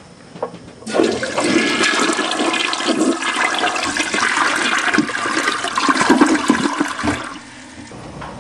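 Toilet flushing: a sudden rush of swirling water that starts about a second in and dies down near the end.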